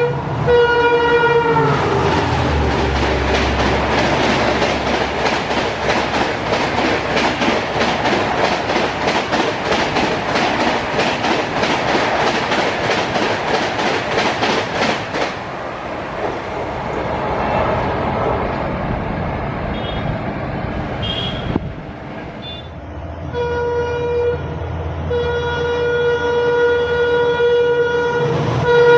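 Diesel locomotive's multi-tone horn ending with a drop in pitch as it passes. Then the express train's coaches rush by at speed, their wheels clattering over rail joints at about three knocks a second for some thirteen seconds before fading. Near the end a locomotive horn sounds again, long and steady, falling in pitch at the very end as it passes.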